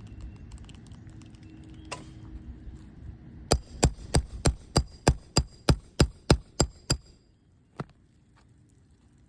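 Roofing hammer striking metal on the roof in a quick, even run of about a dozen sharp blows, roughly three a second, then one more blow a moment later. A low steady hum runs under the first part and stops as the hammering ends.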